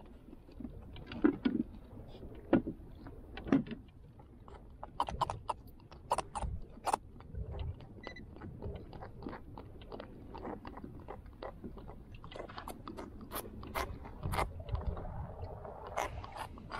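Irregular small clicks, scrapes and knocks of a freshly caught pufferfish and a jig being handled and unhooked on a plastic kayak, with a few louder knocks in the first few seconds.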